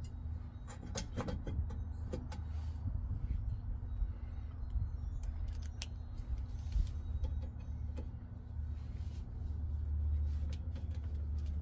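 Scattered small metal clicks and clinks as a screw is worked by hand into a stiff threaded hole on a brake rotor assembly, over a steady low hum.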